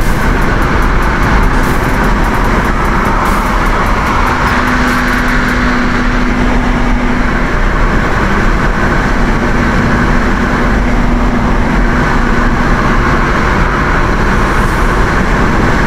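Steady, loud road and wind noise inside a car cruising at about 75 mph on a highway, with a low hum that comes and goes.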